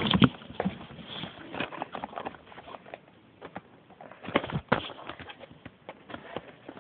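Handling noise from a camera being moved and set up on a stand: a loud bump at the start, then scattered light knocks and rubbing, with two sharper knocks about four and a half seconds in.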